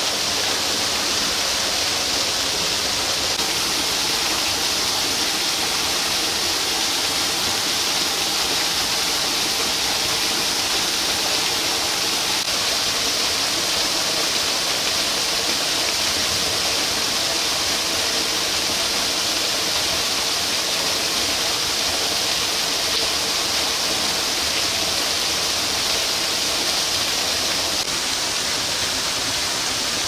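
Steady, even rushing noise like running or falling water, unchanging throughout.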